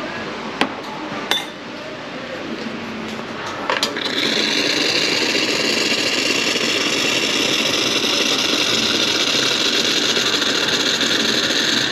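A few sharp clinks and knocks of metal coffee gear, then about four seconds in the espresso machine's hot-water tap opens and runs into a takeaway cup with a loud, steady hiss of water and steam.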